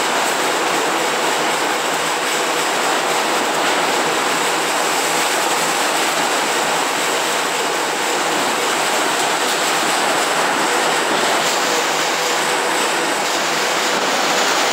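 Heavy tropical rainstorm with strong wind: a loud, steady roar of downpour and gusts.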